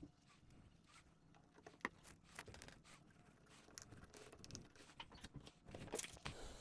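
Near silence with a few faint clicks and taps, the clearest about two seconds in, from hands setting a T-nut in epoxy inside a 3D-printed plastic sander body.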